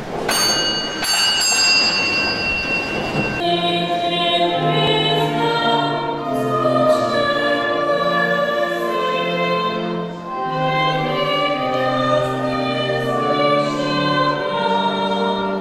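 A choir singing a slow hymn in long held notes, after a short, different-sounding opening passage of about three seconds.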